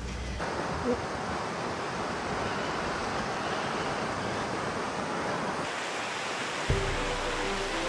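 A steady rushing noise with no rhythm or pitch, changing character abruptly twice; a few soft music notes come in near the end.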